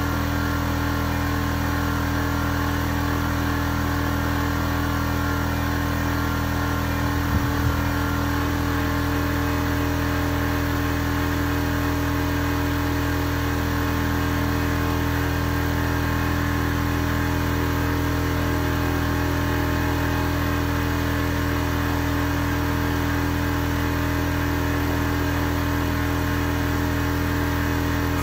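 A motor running steadily at an unchanging speed, with a steady hum, and a brief clatter about seven seconds in.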